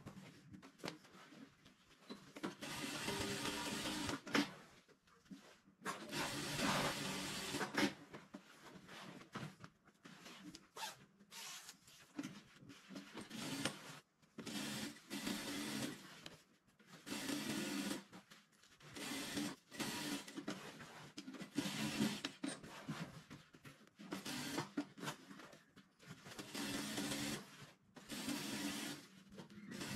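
JAKI single-needle industrial lockstitch sewing machine running in repeated bursts of about one to two seconds, stopping and starting as the brocade and its piping are guided under the presser foot.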